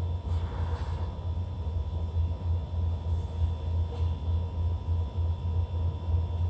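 Steady low rumbling hum, like machinery or air handling, with faint steady high-pitched tones over it.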